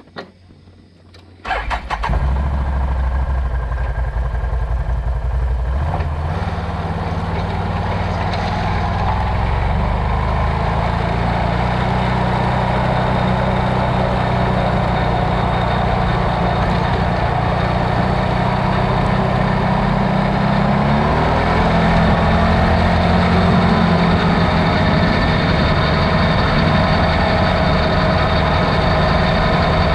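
An off-road vehicle's engine cranks and catches about a second and a half in, then runs steadily at idle.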